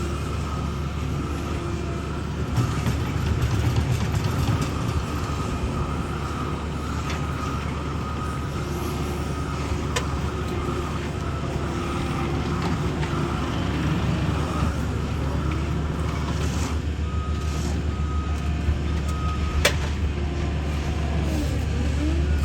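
Heavy road-paving equipment engines running steadily with a deep low hum. A reversing alarm beeps briefly near the end, and there is one sharp knock about two-thirds of the way in.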